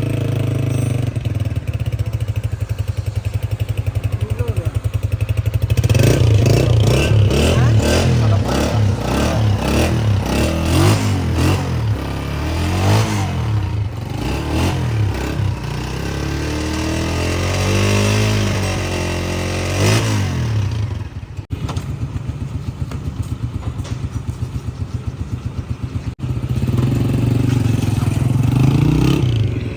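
Honda CG 125 motorcycle's single-cylinder four-stroke engine idling, then revved up and down repeatedly for about fifteen seconds, then settling back to a steady idle.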